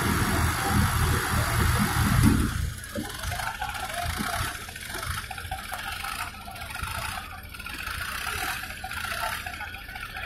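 Two diesel tractor engines, a Sonalika DI 55 and a Swaraj 855, running hard under heavy load as they pull against each other in a tractor tug-of-war. The sound is loud and pulsing for about the first two and a half seconds, then drops sharply quieter and stays lower.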